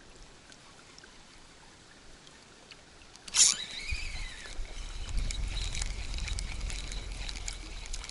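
Spinning reel on a spinning rod: a sharp click about three and a half seconds in, then the reel is cranked to retrieve a spinner lure. It gives a steady whir over a low rumble from the handling.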